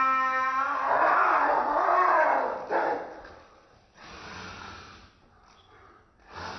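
Two domestic cats fighting. A drawn-out yowl ends within the first second, followed by about two seconds of loud, harsher cries as they swat at each other. The cries die down after that, with a short burst near the end.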